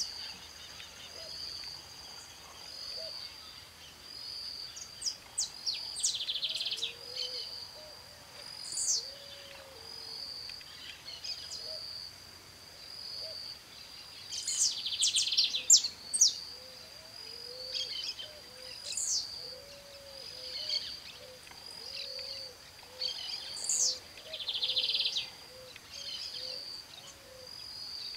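Saffron finch singing: bursts of quick chirps and high sweeping notes every few seconds. Behind them run a steady high pulsing tone and faint low repeated calls.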